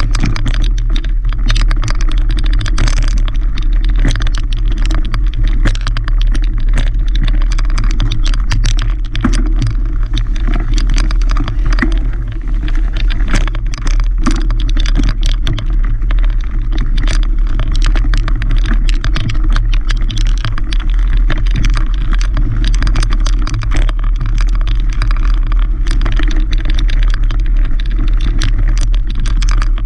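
Mountain bike riding a dirt singletrack, heard from a camera mounted on the rider or bike: a constant low wind rumble on the microphone with frequent rattles and knocks as the bike jolts over the rough trail.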